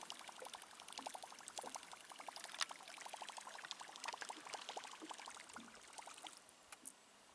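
Small waves lapping and gurgling against an aluminium boat hull: a quick, uneven run of faint splashy ticks that dies away near the end.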